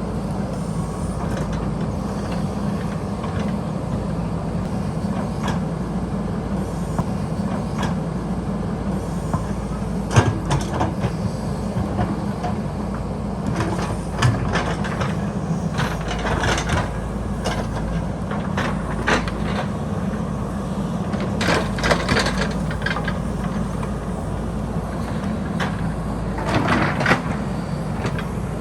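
JCB backhoe loader's diesel engine running steadily under work, with repeated clanks and knocks from the machine's bucket and arm at intervals, several of them in clusters.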